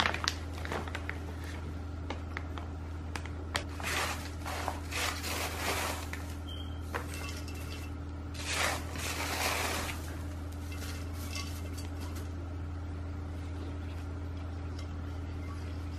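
Chunky bark orchid potting mix tipped from a plastic bag and rattling into a terracotta pot, in two main bursts a few seconds apart with small clicks between, over a steady low hum.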